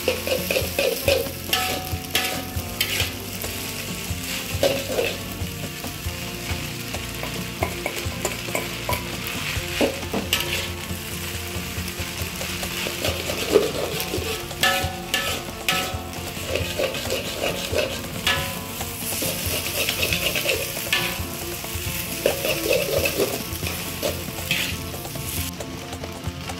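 Food sizzling as it fries in a pan while being stirred, with the utensil scraping and knocking against the pan many times.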